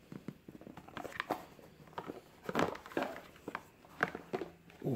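A cardboard watch presentation box being handled: the inner box slid out of its sleeve and its hinged lid opened, giving a run of irregular light scrapes, taps and clicks.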